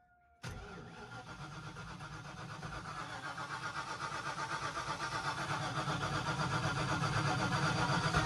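Starter cranking the small-block Ford V8 of a Fox-body Mustang on its first start after a new Trick Flow top end kit (heads and cam). The cranking pulses evenly, comes in suddenly just under half a second in, grows slowly louder, and stops abruptly without the engine catching.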